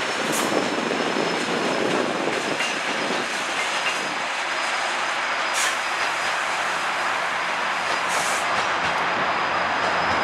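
GO Transit commuter train, an MP40PH-3C diesel locomotive and bilevel coaches, rolling past and away: a steady rumble of wheels on rail with a thin, high, steady whine over it.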